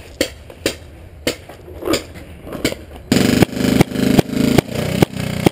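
Paintball marker firing: sharp shots at first, scattered about every half second. About three seconds in, a loud steady motor whir sets in, with shots coming quickly, two or three a second.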